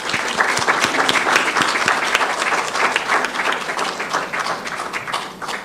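Audience applauding, a dense patter of many people's hand claps that dies away near the end.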